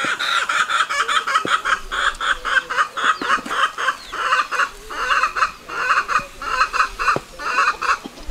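Chicken clucking: a long, loud run of harsh clucks, about four a second, stopping just before the end.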